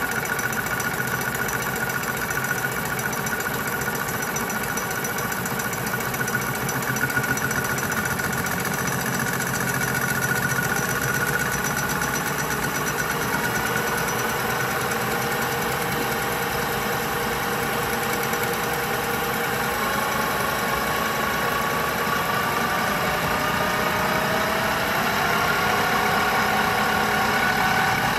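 Colchester Student lathe running steadily while its tool takes a facing cut across a large spinning metal disc. Over the last several seconds a whine rises slowly in pitch as the cut goes on.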